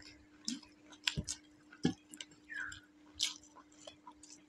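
Scattered soft clicks and smacks of people eating rice by hand from plates, with fingers working the food and mouths chewing, over a steady low hum.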